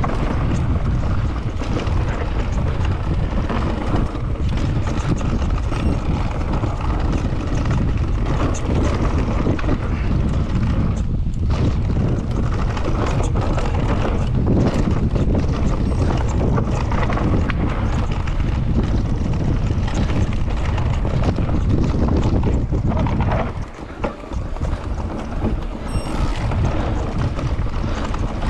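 Mountain bike descending dirt singletrack, heard from a camera on the rider: steady wind buffeting the microphone over the rumble of knobby tyres on dirt, with clicks and rattles from the bike over bumps. The noise drops for about a second about three-quarters of the way through.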